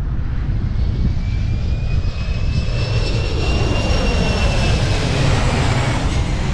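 Landing airplane passing low overhead: a high engine whine swells to its loudest about four seconds in and then begins to fade, over steady wind rumble on the microphone from riding.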